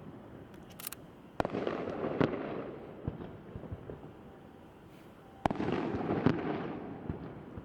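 Aerial fireworks: two shell bursts about four seconds apart. Each is a sharp bang, followed by a second crack under a second later and a long tail that dies away over a couple of seconds.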